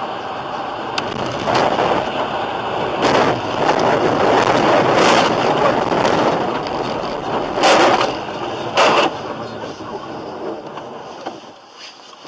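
Rushing road and wind noise from a moving vehicle, with several louder surges of noise along the way, easing off near the end.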